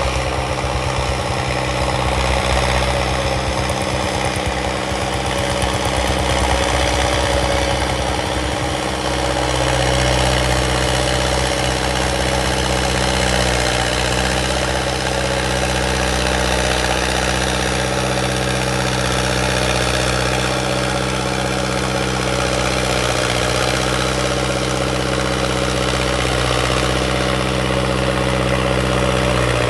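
Hindustan 60 tractor's diesel engine running steadily at a constant speed, slightly unsteady for the first several seconds and settling after about nine seconds.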